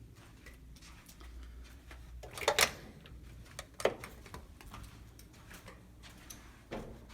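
Quiet indoor room tone with a faint low hum, broken by a few light clicks and two sharper knocks, about two and a half and four seconds in.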